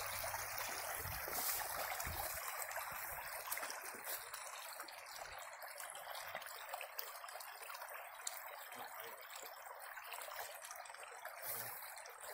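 Shallow creek flowing steadily over gravel and stones, an even rushing trickle.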